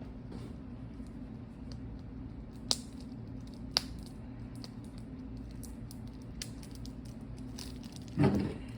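Trading card packaging being handled and picked at by hand: faint rustling and scattered small clicks, with two sharper clicks around three and four seconds in, over a steady low hum. The packaging is proving hard to open by hand.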